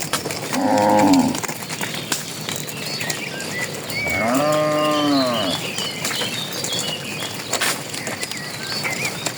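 Cattle mooing twice: a short moo about half a second in and a longer, arching moo around four seconds in, with birds chirping throughout.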